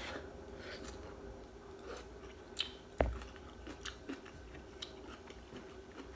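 A person chewing a mouthful of soup vegetables, with small wet clicks and crunches. There is one sharp knock about three seconds in.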